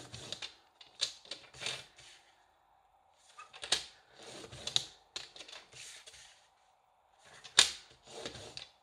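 Cardstock being cut and scored for a box: clusters of short scraping strokes and sharp clicks with pauses between them, the sharpest click about three-quarters of the way through.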